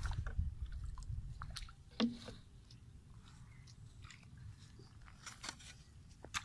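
Crunching and scuffing of dry soil and clods as plastic PVC pipe is handled and pulled from a dug hole, with scattered sharp clicks and one louder knock about two seconds in.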